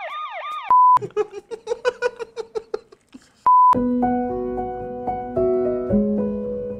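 Edited sound effects and music: a quick warbling siren-like tone, a short loud steady beep, a run of short plucked notes about five a second, and a second beep. About four seconds in, keyboard music with held chords takes over.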